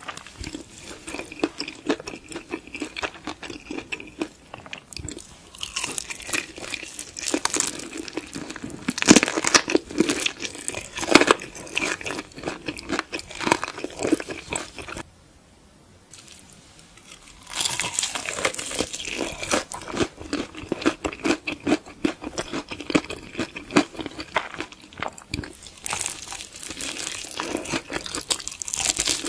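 Close-up eating sounds: crunchy food being bitten and chewed, dense crackling crunches with a few louder bites, pausing for about two seconds midway before the chewing resumes.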